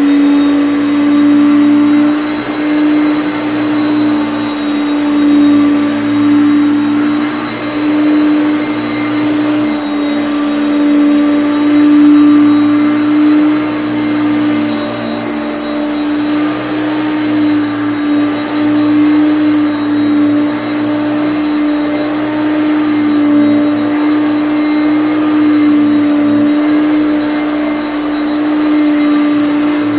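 Hoover Concept One upright vacuum cleaner running steadily with a high motor hum, its loudness wavering slightly.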